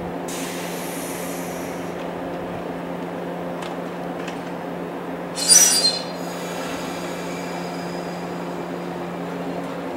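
Electric commuter train standing at the platform, its onboard equipment humming steadily. About five and a half seconds in there is a short, loud burst of hissing compressed air, with a fainter hiss near the start and a few light clicks.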